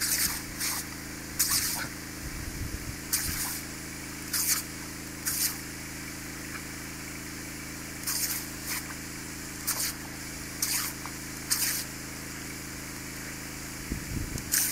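Water hissing from a pinhole leak in a poly water pipe. About a dozen short, loud splashy bursts come at irregular spacing as dogs snap at and break the jet.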